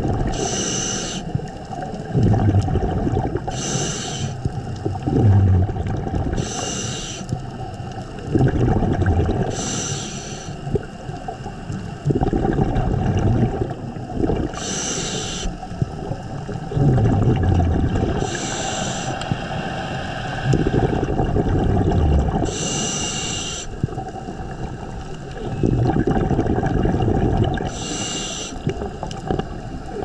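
Scuba diver breathing through a regulator underwater: about eight breaths, each a short hissing inhale followed by a low, gurgling rumble of exhaled bubbles.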